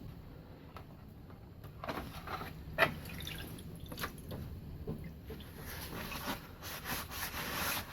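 Rusty steel vise parts being lifted out of an Evapo-Rust rust-remover bath, the liquid dripping and trickling off them, with a few small knocks.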